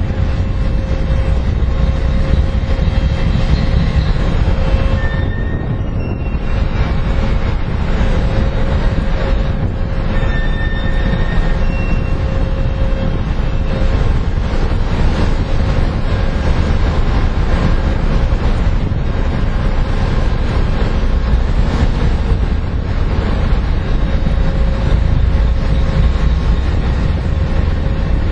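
Steady low rumble with a constant hum from an oil tanker's machinery, under wind buffeting the microphone. A few brief high tones sound about five and ten seconds in.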